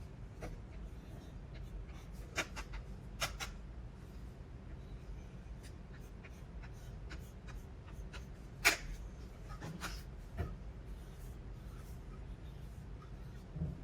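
A few short, sharp clicks and taps over a low steady hum, the loudest a little past the middle.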